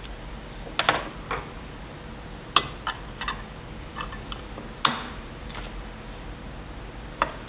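Scattered small metal clicks and ticks of a screwdriver working a screw on a hard disk drive's head-actuator magnet bracket, with one sharper click about five seconds in.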